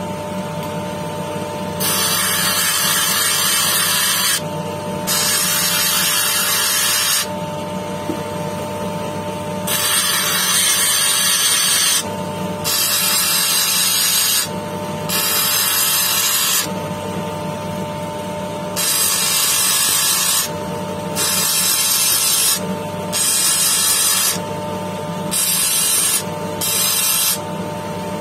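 Lapidary machine's motor running with a steady hum while a jasper cabochon is pressed against its spinning wheel in repeated passes. Each contact gives a hissing grind lasting one to three seconds, stopping whenever the stone is lifted and turned.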